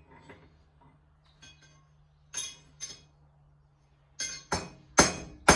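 Hammer blows on a steel blacksmith's punch, ringing metallic clinks: two strikes a little past halfway, then four quicker ones near the end, the last the loudest. The hammer is knocking at the punch to free it from the hole in the hot steel.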